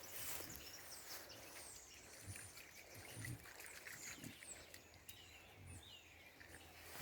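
Faint chirping and twittering of small birds, many short calls scattered throughout, with a few soft low thumps.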